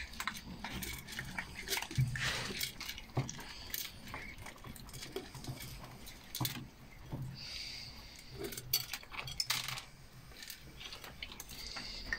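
A litter of Prague Ratter puppies eating dry kibble from a stainless steel feeding dish: irregular crunching, with kibble and the dish clinking.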